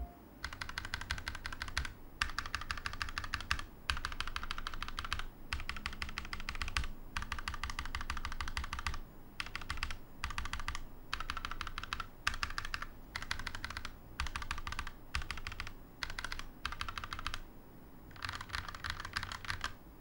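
Fast typing on a mechanical keyboard fitted with Akko CS switches, the keys clacking in bursts of one to two seconds with short pauses between them and a longer pause near the end.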